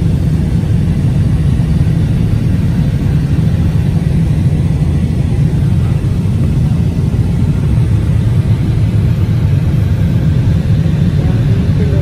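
Airliner cabin noise in flight: the steady, deep rumble of the jet engines and rushing airflow heard from inside the passenger cabin during the approach.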